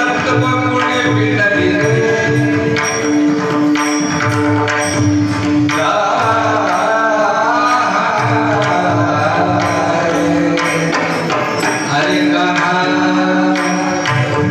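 Indian devotional kirtan music: a man singing a long, wavering melodic line over a steady drone and regular hand-drum beats.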